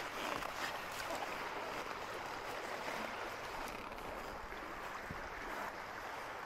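Steady rush of a flowing creek.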